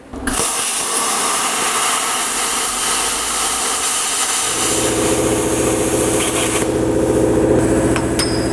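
Plasma cutter hissing steadily as its arc cuts through a metal exhaust flange plate. About halfway in, a low, fast-pulsing motor hum starts under it, and the cutting hiss stops shortly after; near the end come a couple of light metallic taps.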